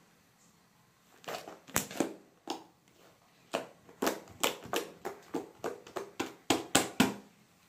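Hands slapping and squeezing a lump of white homemade slime on a table. About a second in, a quick, irregular run of sticky pops and slaps starts and goes on until near the end.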